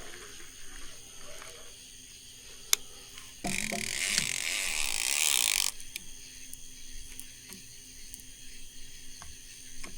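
A fishing reel's ratchet buzzing fast for about two seconds, starting a little past three seconds in, with a few separate ticks before and after.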